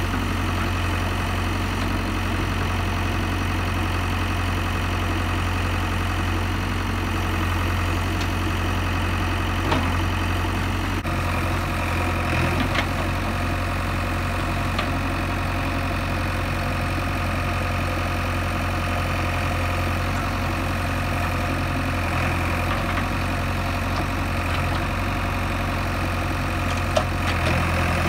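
JCB 3DX backhoe loader's diesel engine running steadily as the backhoe digs, its note shifting about eleven seconds in. A few short knocks come through, one near the middle and a couple near the end.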